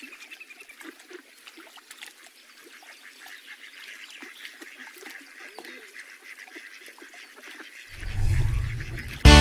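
Water birds calling faintly, a sparse scatter of short calls over a quiet background. About eight seconds in a low swell rises, and loud music cuts in right at the end.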